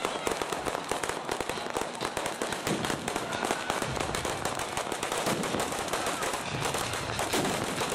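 Fireworks and firecrackers going off in a dense, unbroken run of rapid bangs and cracks.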